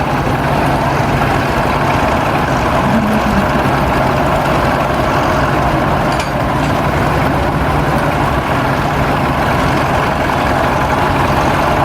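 A large engine idling steadily, the low, even running of a heavy machine or truck.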